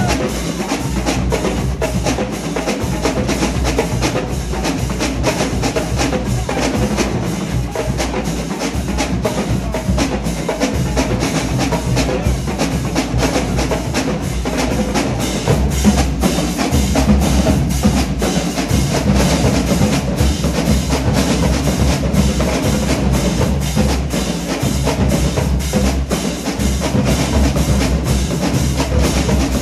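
Marching drumline playing a fast, continuous pattern together: snare drums, tenor drums, bass drums and cymbals, loud throughout.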